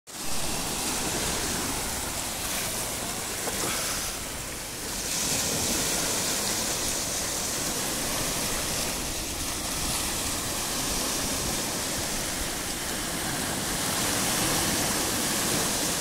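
Small sea waves breaking and washing in over a beach of rounded cobbles: a steady rush of surf that dips briefly about four seconds in.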